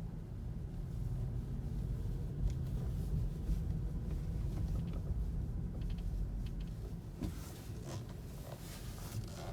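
Cabin of a 2017 Kia Niro in motion: a steady low rumble with short, irregular creaks and clicks, more frequent in the last couple of seconds. This is the recurring creak that dealers have not been able to find or reproduce.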